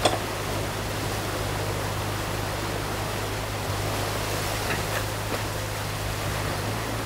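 Water rushing through a breach in a beaver dam, with the steady low hum of a New Holland mini excavator's engine underneath. A sharp knock comes right at the start and a few faint cracks come about five seconds in.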